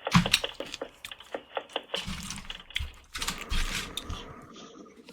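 A run of quick, irregular clicks and taps, densest in the first two seconds and like typing on a keyboard, followed by a few dull low thumps.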